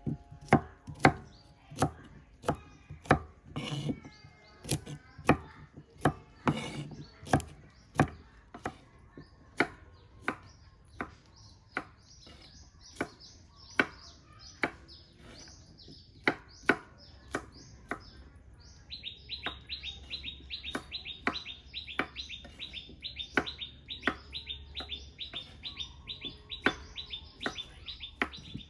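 Kitchen knife chopping cucumbers on a wooden chopping board, steady chops about one to one and a half a second, loudest in the first third. Birds chirp around it, and from about two-thirds in a bird keeps repeating a rapid run of short high chirps.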